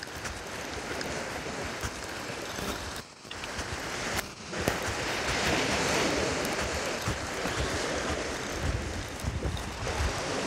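Wind buffeting the microphone over the wash of surf breaking on the beach, with two brief lulls about three and four seconds in.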